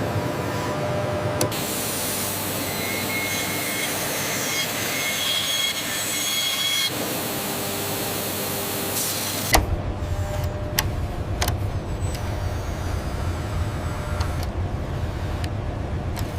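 Steady machinery noise with faint steady tones, changing abruptly about a second and a half in, again about seven seconds in, and once more about nine and a half seconds in with a sharp click, after which it turns deeper and more rumbling.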